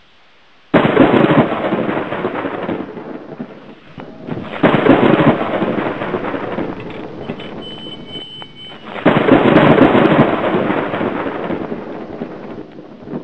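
Three claps of thunder, each starting suddenly and rumbling away over a few seconds: the first about a second in, the next near the middle, the last about two-thirds of the way through.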